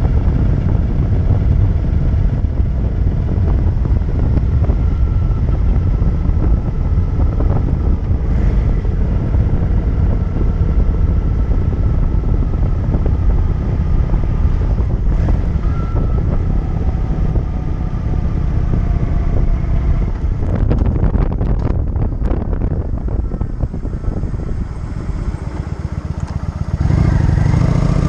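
Cruiser motorcycle engine running steadily at road speed. About twenty seconds in it comes off the throttle and slows, its separate firing pulses audible as the sound drops. Near the end it picks up again with rising revs.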